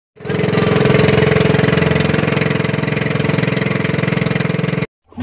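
Small engine of a motorized outrigger boat running steadily with a fast, even pulsing; it cuts off abruptly near the end.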